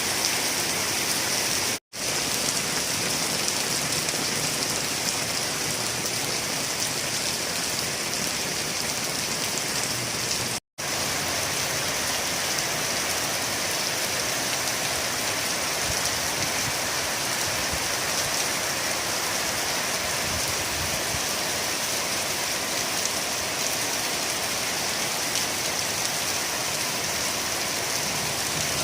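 Steady rain falling, an even hiss of drops with no thunder. It cuts out to silence for a moment twice, about two seconds in and again near the middle.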